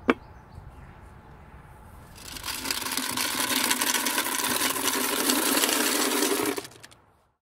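A single sharp knock right at the start, then a tubful of Mentos candies poured into a glass tank, rattling and clattering against the glass and each other for about four seconds before stopping.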